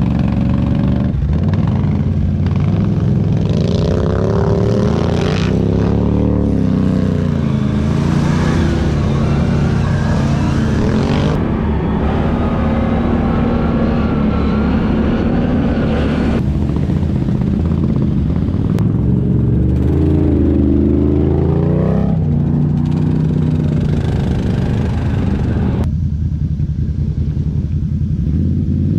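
ATV engines running under load, the engine pitch rising and falling again and again as the quads accelerate and ease off.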